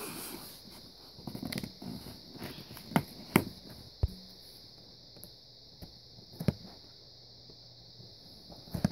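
Hands handling a cardboard toy box and its packaging: soft rustling and a few scattered sharp clicks and taps, over a faint steady hiss.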